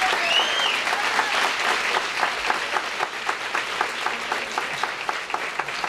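Audience applauding, a dense, steady clatter of clapping that eases slightly toward the end.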